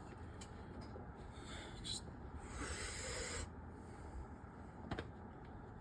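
A man making a soft hiss with his mouth, about a second long midway, imitating the sound of a turbocharged engine likened to a Powerstroke diesel. A light click near the end.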